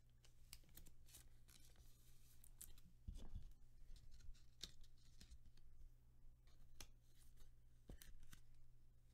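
Faint scattered rustles and light clicks of trading cards being handled and slipped into plastic card sleeves, over a low steady hum.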